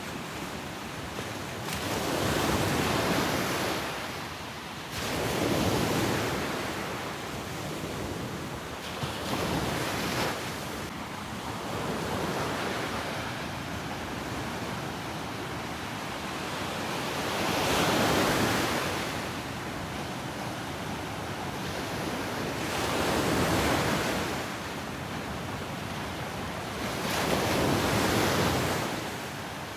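Ocean waves breaking and washing up the beach: six swells of surf a few seconds apart, with a steady hiss of water between them.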